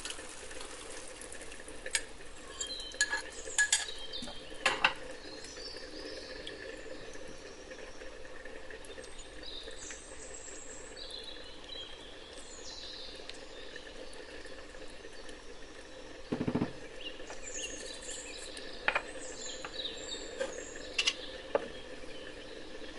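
Creamy sauce simmering and sizzling in a nonstick frying pan as it is poured in from a bowl and stirred with a silicone spatula, with scattered sharp clinks of a spoon and bowl against the pan. A single deeper clunk comes about two-thirds of the way through.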